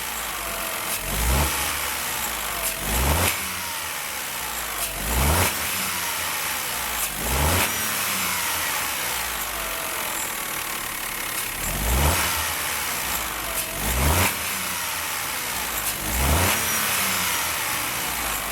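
Peugeot 208 1.2 three-cylinder petrol engine being blipped with the throttle, about seven short revs with pauses at idle between them. The engine runs with no whine: the loud whine from the front of the engine has been cured by replacing the front components and tensioning the belt.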